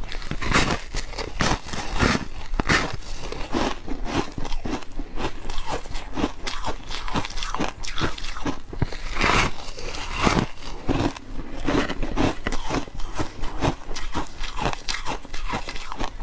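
Biting and chewing a slab of porous freezer-frost foam ice, close to the microphone: many quick, irregular crunches one after another.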